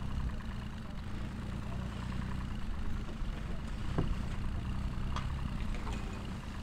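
Boat engine idling with a steady low rumble. A brief knock about four seconds in.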